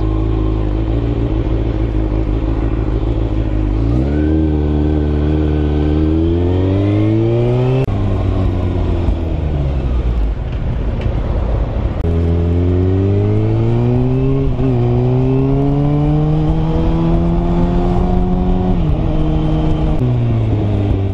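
Sport motorcycle engine heard from the rider's seat, running steadily at first, then pulling away about four seconds in. Its pitch rises with each gear and falls back at the upshifts, around eight seconds in and twice near the end.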